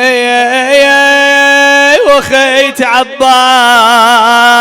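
A man's voice chanting an Arabic Shia mourning lament in long drawn-out notes: one note held steady for about two seconds, a short break, then a held note with a quick wavering ornament.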